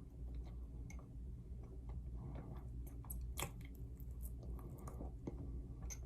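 Irregular soft clicks and short crunchy crackles, busiest about three seconds in, over a steady low hum.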